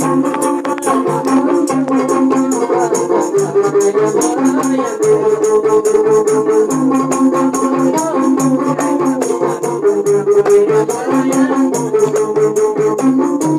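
Live gambus music: a gambus lute melody of held, slowly changing notes over a fast, even rattling beat with a hand-held frame drum.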